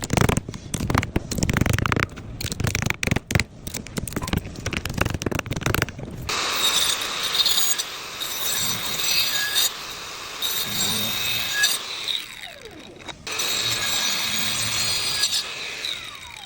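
Wood being sawn and shaped: for the first few seconds, irregular knocks and scrapes, then a power tool cutting steadily with a high whine. The tool stops twice, and its pitch falls as it winds down.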